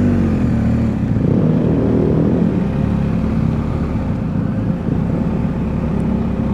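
BMW R1250 GS boxer-twin motorcycle engine running at low town speed, heard from the bike. Its pitch rises and falls over the first couple of seconds as the bike turns through a junction, then runs steadier.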